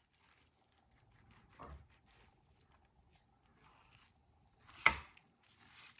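Knife cutting raw chicken breast on a cutting board: faint scattered handling and slicing sounds, a soft thud about a second and a half in, and one sharp knock about five seconds in.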